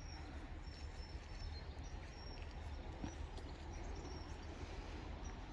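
A small bird chirping in short high notes, repeated every second or so, over a steady low rumble.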